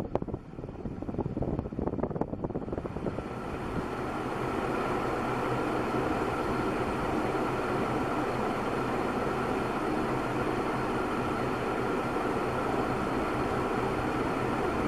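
1984 Golden Fan ceiling fan running at speed: the rush of air from its blades, with a steady motor hum that grows louder about three seconds in and then holds even. The fan has bad bearings, which the owner holds responsible for its slow spin-up, and Golden Fans are known to run relatively loud.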